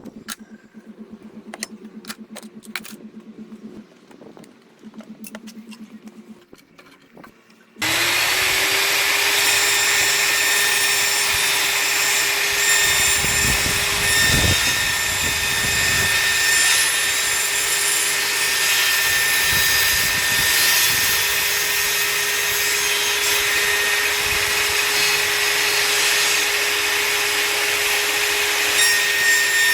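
A few light clicks and handling knocks, then about eight seconds in a table saw switches on: its motor whine rises quickly to a steady pitch and keeps running loudly with a hissing blade noise.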